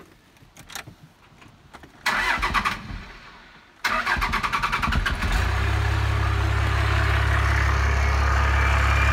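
A 5.9-litre 12-valve Cummins diesel is cranked by its starter, briefly about two seconds in, then again just before four seconds, when it catches and settles into a steady idle.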